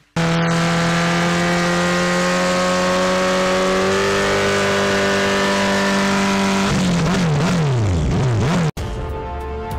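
Sport motorcycle engine held at high revs in a steady drone during a rear-tyre burnout. Near the end it is revved up and down several times, then cuts off abruptly.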